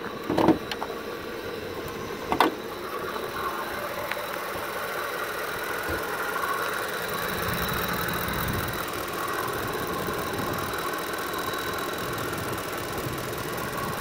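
Ford F-150 pickup's V8 engine idling steadily with the hood up, a thin high whine running above it. Two sharp knocks in the first few seconds as the hood is raised.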